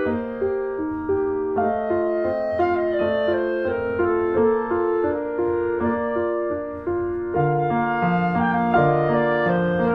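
Instrumental background music led by piano, a melody of notes changing about every half second.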